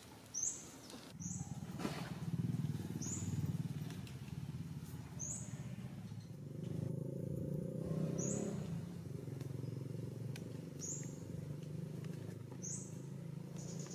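A motor engine running steadily with a low hum. Over it, a bird gives a short, high, slightly falling chirp about every one and a half to two seconds.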